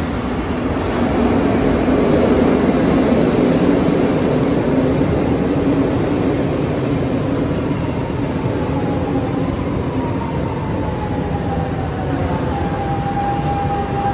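Lisbon Metro train pulling into an underground station: the rumble of wheels on rail builds over the first couple of seconds, then a whine falls in pitch as the train brakes and settles into a steady tone near the end as it comes to a stop.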